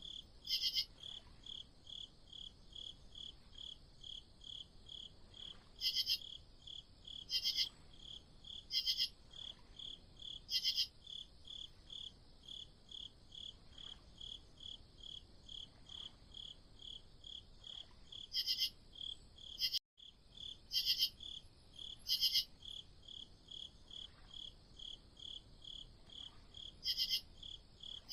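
Night crickets chirping in a steady, even pulse of about three chirps a second, with louder chirps from a nearer insect every second or two. The sound drops out briefly about twenty seconds in.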